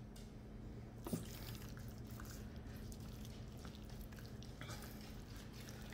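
Faint wet squishing and soft ticks as yellow mustard is squeezed from a plastic squeeze bottle and rubbed over raw pork butt with a gloved hand, with one sharper click about a second in. A low steady hum runs underneath.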